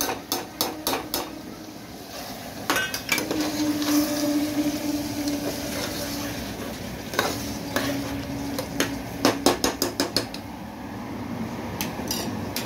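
Metal spoon stirring in a metal pressure cooker, clinking and scraping against its sides in runs of quick knocks, with a dense run about three quarters of the way through. A low steady hum sits under the middle part.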